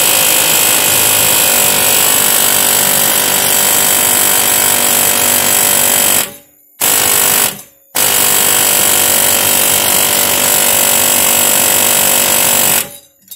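Pneumatic air chisel hammer with a pointed tip hammering rapidly on the end of a rust-seized rear axle shaft, steel on steel, in three loud runs: two short breaks a little past halfway. The axle does not budge.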